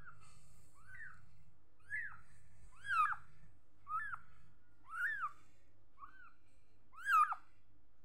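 Young kitten mewing, short high-pitched mews about once a second, each rising then falling in pitch, a few louder than the rest.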